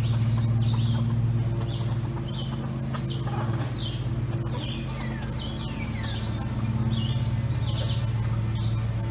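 Many short, quick, mostly falling chirps and tweets from songbirds in the trees, over a steady low hum that is the loudest sound throughout.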